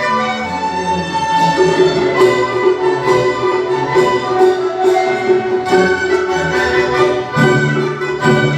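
Instrumental music: a bowed string melody over a long held note, with light percussion strikes about once a second.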